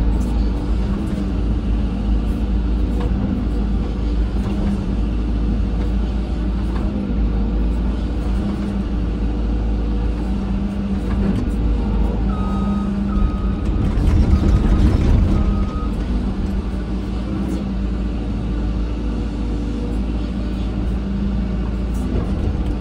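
Caterpillar 313 hydraulic excavator's diesel engine running steadily under working load, swelling louder for a second or so around the middle. A short series of four high beeps sounds about halfway through.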